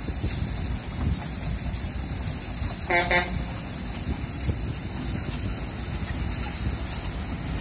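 Kobelco crawler excavator's diesel engine running as the machine swings and works, with wind buffeting the microphone. About three seconds in, a short double horn toot.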